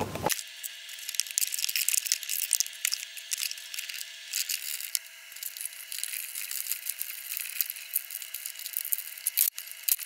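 Small metallic clicks and rattles of seat belt hardware and tools as the front seat belt anchors are bolted back in. The sound is thin, with no low end, over a faint steady tone.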